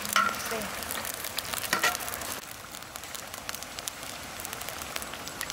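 Curled potato slices deep-frying in a wok of hot oil: steady sizzling and crackling of the bubbling oil, with a few sharper crackles in the first two seconds.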